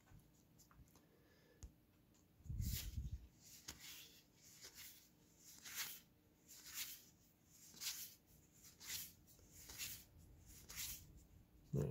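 Magic: The Gathering cards from a freshly opened booster pack being slid one at a time from the front of the stack to the back, a faint papery swish about once a second. A brief low thump of handling comes about two and a half seconds in.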